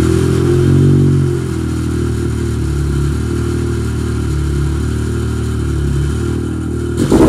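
Yamaha Sidewinder snowmobile's turbocharged three-cylinder engine idling steadily at about 1,500 rpm just after starting, settling a little about a second in. Near the end it suddenly revs up louder with a crackle as the anti-lag is switched on.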